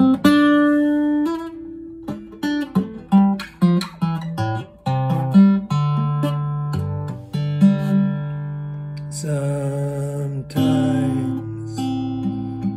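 Acoustic guitar played solo, fingerpicked: a run of single plucked notes and chords over ringing low bass notes.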